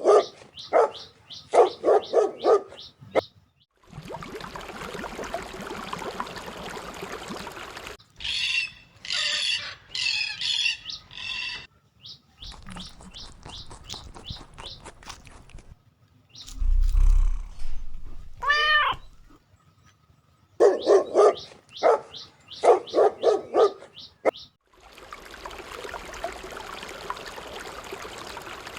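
A string of short animal clips: a dog barking in quick runs of several barks, twice, with high bird squawking and chattering in between. Between them come faint clicks, one whistled call that falls and then rises, and stretches of steady hiss.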